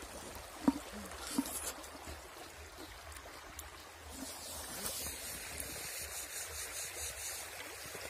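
Shallow stream trickling and running over stones, a steady rush that grows a little louder about five seconds in. Two short knocks stand out in the first second and a half, the first the loudest sound here.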